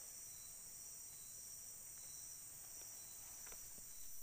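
Faint, steady high-pitched chirring of insects in riverside undergrowth, with a soft chirp repeating about three times a second.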